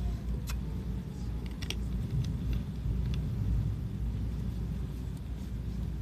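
Low, steady rumble of a train rolling slowly along the track, with a few brief high clicks and squeaks from the wheels and rails in the first few seconds.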